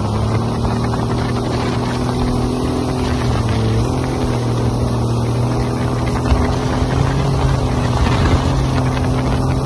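Jet ski engine running steadily under way, a loud constant drone over rushing water and wind noise on the microphone. The engine note wavers briefly about three to four seconds in.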